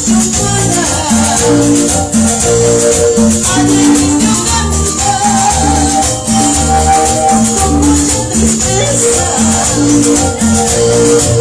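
Loud live music through the stage PA, with a bass line repeating about twice a second and a shaker running steadily on top.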